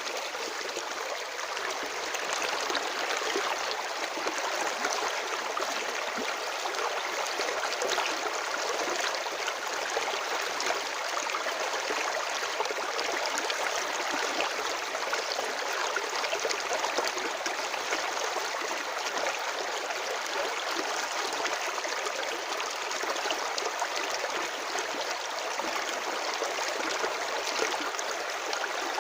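Stream of water running steadily over rocks, a constant babbling and gurgling rush.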